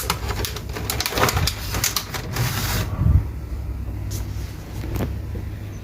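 Groceries being handled and unpacked: plastic bags and packaging rustling with a series of light knocks over the first three seconds, then one more knock near the end, over a steady low hum.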